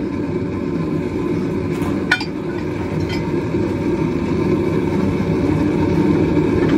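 Steady low roar of a gas forge burning, growing slightly louder, with one sharp metal clink about two seconds in.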